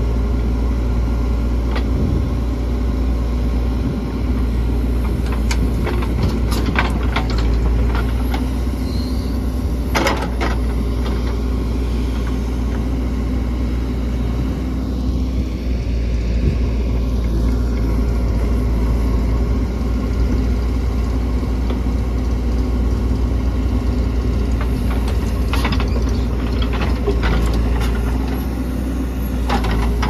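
JCB 3DX backhoe loader's diesel engine running steadily as it digs, with scattered sharp knocks and clatters from the digging work, several coming close together near the end.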